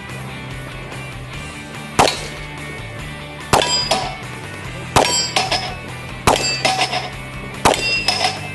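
Revolver fired five times at a steady pace, about a second and a half apart. Each shot is followed by the clang of a steel target ringing from the hit.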